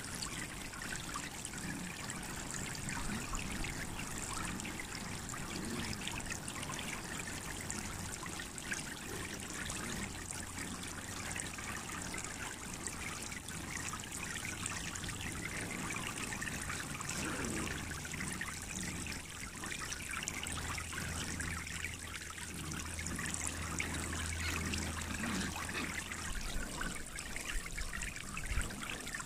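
Water spraying steadily from the jets of an inflatable sprinkler splash pad and splashing down onto its wet plastic mat.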